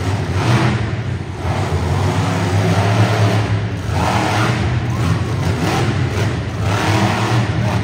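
Monster truck engine running hard and revving, its pitch rising and falling repeatedly.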